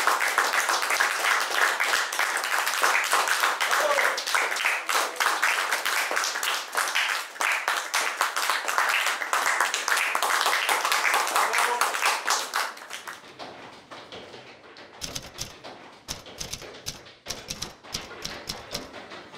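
Audience applauding, a dense even clatter of many hands that stops about thirteen seconds in. Fainter, irregular taps and knocks follow.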